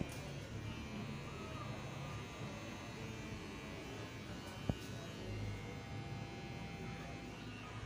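Electric hair clippers buzzing steadily as they cut hair, with one sharp click a little past the middle.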